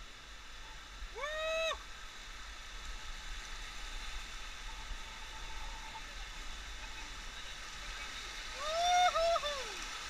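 Whitewater river rapids rushing steadily. A person's drawn-out call rises over them about a second in, and a longer, wavering call comes near the end; the calls are the loudest sounds.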